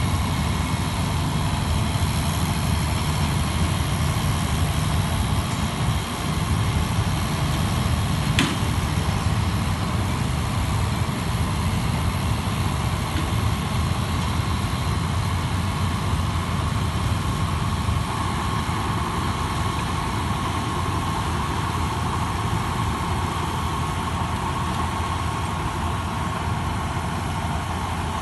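Engine running steadily under load, with a thin steady whine over the low drone and a single sharp click about eight seconds in.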